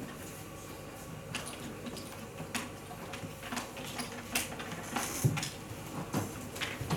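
Scattered light clicks and taps at irregular intervals, typical of draughts pieces being set down and game clocks pressed during rapid play, over a low room hum.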